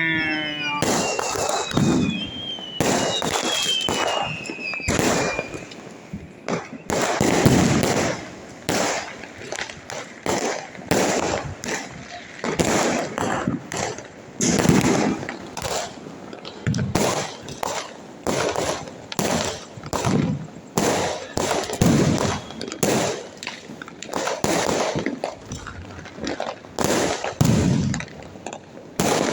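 Diwali firecrackers and fireworks going off in a dense, irregular barrage of overlapping bangs and crackles. A few whistles fall in pitch during the first several seconds.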